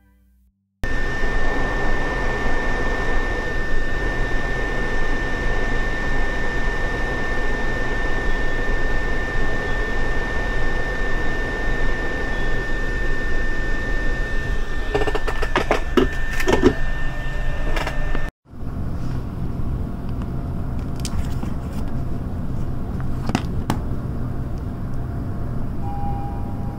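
Steady rushing of a fan or blower with a thin, steady high whine over it, and a few light clicks about 15 to 17 seconds in. It breaks off abruptly about 18 seconds in, and a similar steady fan noise without the whine follows.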